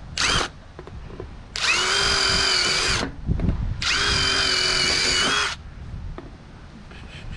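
Power drill boring air holes: a short burst right at the start, then two runs of about a second and a half each, the motor pitch rising to speed at the start of each run and holding steady.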